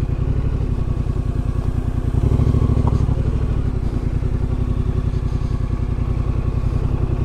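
Yamaha Ténéré 700's parallel-twin engine running at low revs as the bike rides slowly over rough grass, rising slightly with a little more throttle about two seconds in.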